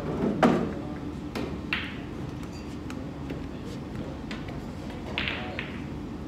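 Pool balls clicking during a game of 9-ball: a few sharp knocks of cue and ball hitting ball, the loudest about half a second in, another pair a little over a second later and one more near the end.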